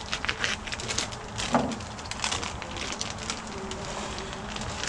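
Plastic sausage packaging crinkling and crackling as it is handled and opened by hand, in quick irregular crackles.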